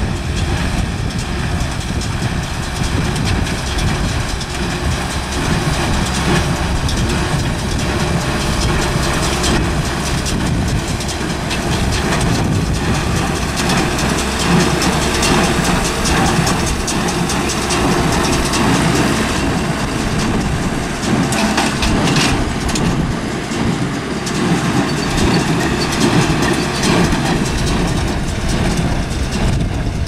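John Deere 6300 tractor's diesel engine running steadily under load while it drives a John Deere 328 small square baler, whose plunger and pickup clatter continuously as hay is baled.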